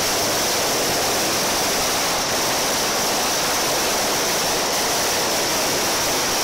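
Mascletà firecracker barrage: firecrackers going off so fast that they merge into one loud, unbroken rush of noise, with no gaps between the bangs.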